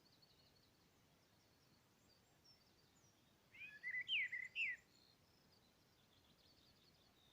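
Birdsong: faint high chirps throughout, with a louder phrase of a few quick sweeping notes about halfway through.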